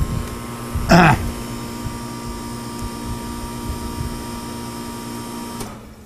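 Central air conditioner's outdoor condenser unit running with a steady hum and several steady tones, then shutting down about five and a half seconds in. A short loud sound falling in pitch about a second in.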